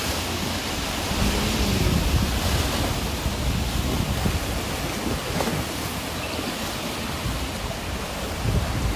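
Steady rushing of moving water, with wind buffeting the microphone.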